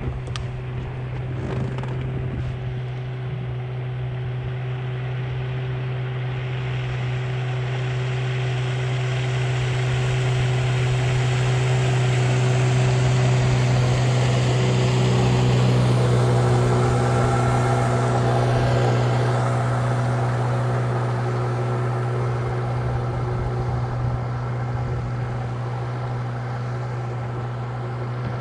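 Outboard motor running with a steady hum, while a passing motorboat's engine and rushing water swell to their loudest about halfway through and then fade away.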